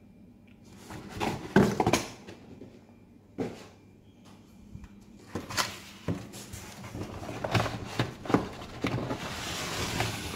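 Cardboard and bubble-wrap packaging being handled in a shipping box: scattered sharp knocks and scrapes of cardboard, with plastic rustling and crinkling that grows denser near the end.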